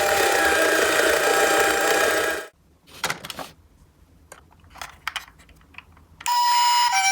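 A toy ambulance's electronic siren starts about six seconds in, sounding the two-tone hi-lo "pee-po" pattern that switches pitch about every two-thirds of a second. Before it, a loud noisy din with a few steady tones cuts off suddenly, followed by a few light clicks and knocks.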